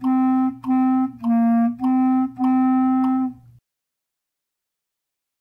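B-flat clarinet playing five detached notes in its low register, alternating between two pitches a step apart, the last held longest; the playing stops abruptly about three and a half seconds in.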